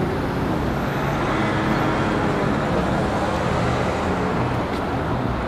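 Steady city road traffic: car and bus engines running and tyres on the road, a continuous even noise with nothing standing out.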